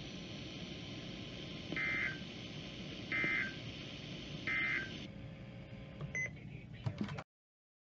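Emergency Alert System end-of-message data bursts received on NOAA Weather Radio: three short bursts of buzzy digital tones about 1.3 s apart over steady radio hiss. The audio cuts off about seven seconds in.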